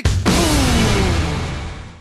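Rock music ending on one loud final hit, with a pitch sliding downward as it fades out near the end.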